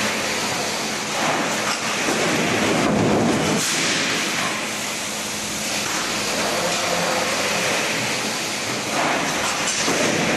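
Sheet-metal embossing production line machinery running: a loud, continuous mechanical rumble under a faint steady hum. It swells heavier about two to three seconds in and again near the end.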